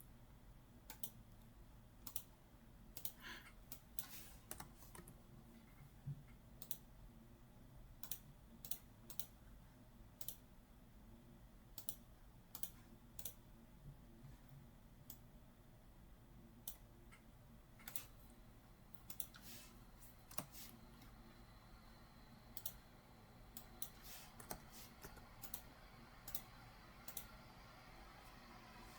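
Computer mouse clicks and keyboard keystrokes, sharp and irregular, one or two a second, over a faint steady low hum.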